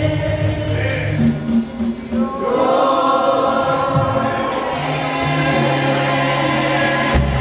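Gospel choir of women's and men's voices singing together with keyboard accompaniment. After a brief dip, the choir swells into full held chords.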